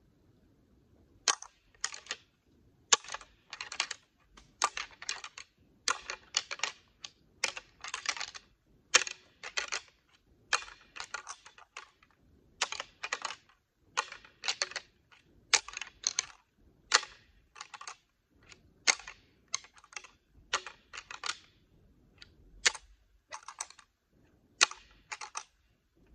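A pair of deer antlers rattled together: repeated flurries of sharp clacking and tine-on-tine grinding, starting about a second in and stopping just before the end. This is antler rattling, a bowhunting call that imitates two bucks fighting.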